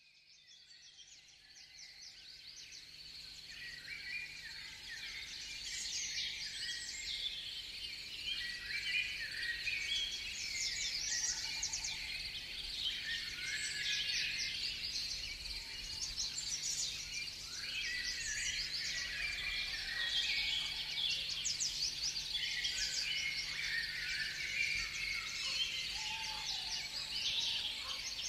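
Many small birds chirping and twittering together in a dense, continuous chatter, fading in over the first few seconds.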